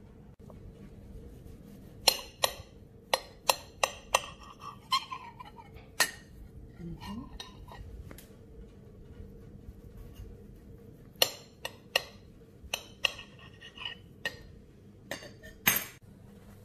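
A kitchen knife clinking and knocking against a white serving plate as a cake is cut and its slices moved about: sharp clinks, some with a short ringing, in two bursts with a pause of about five seconds between them.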